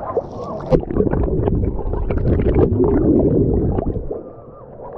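Sea water sloshing and gurgling around a camera held at the waterline, muffled as it dips in and out of the water, with many small splashes. It is loudest through the middle and falls away about four seconds in.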